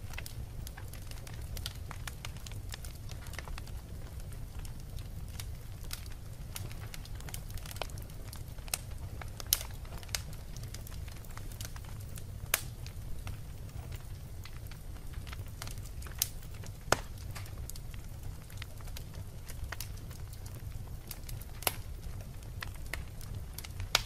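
Wood logs burning in a fireplace: a steady low rumble of flame under frequent small crackles, with several louder sharp pops scattered through.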